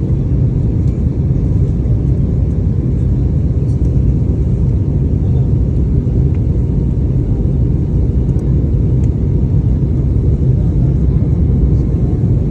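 Airliner cabin noise: the steady low rumble of the engines and airflow heard from inside the passenger cabin.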